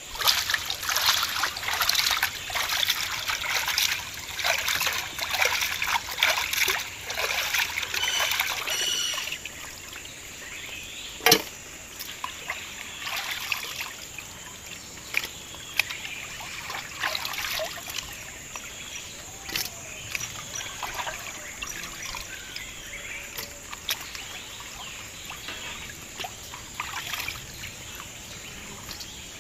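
Hands washing small whole fish in a metal basin of water: steady sloshing and splashing for the first nine seconds or so, then scattered splashes and drips as handfuls of fish are lifted out. A single sharp knock about eleven seconds in.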